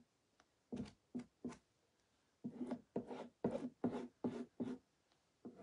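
Squeegee scraping chalk paste across a silkscreen transfer in short strokes, a few spaced out at first, then a quicker run of about three a second, smoothing out lumps and squeegee lines.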